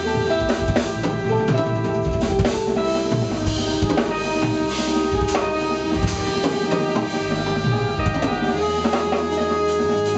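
Live band playing, with saxophone, trombone and trumpet holding long notes together over a drum kit, keyboards and guitar.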